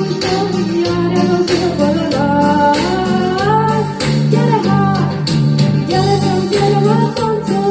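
Live song: a Yamaha Tyros arranger keyboard playing a rhythmic accompaniment with a steady bass line, and a woman singing the melody into a microphone over it.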